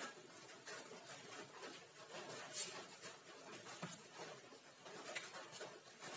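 Marker and eraser working on a whiteboard: faint rubbing and light taps, with one sharper tap about two and a half seconds in.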